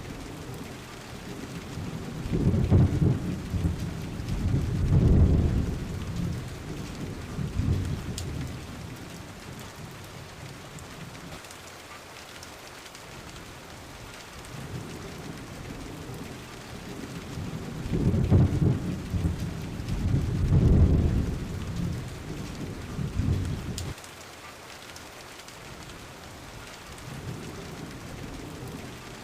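Steady rain falling, with thunder rumbling twice: a long low roll starting about two seconds in and another just past halfway, each swelling twice before dying away.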